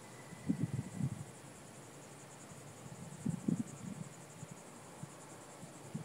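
Insects trilling steadily in a high, finely pulsing chorus, with two short bursts of low rumble about half a second and three and a half seconds in.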